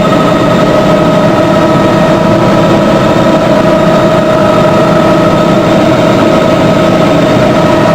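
Helicopter engine and rotors running steadily, heard from inside the cabin as a loud, even drone with a constant whine on top.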